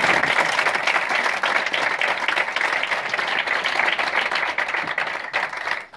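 Theatre audience applauding, a dense, steady clapping that stops abruptly near the end.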